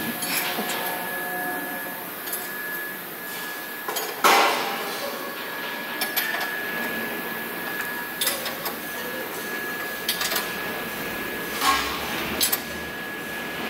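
Factory workshop ambience: a steady background hum with a faint, steady high-pitched whine, and scattered sharp metallic knocks and clanks from assembly work, the loudest about four seconds in.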